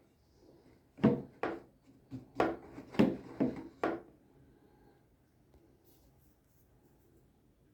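About six sharp knocks in quick, uneven succession over roughly three seconds.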